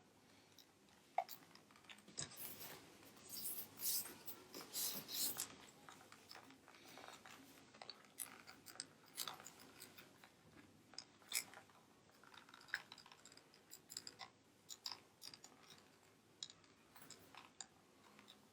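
Faint, irregular clicks and scratches of a PS4 DualShock 4 controller's plastic shell being handled and worked with a screwdriver while it is taken apart, busiest a few seconds in.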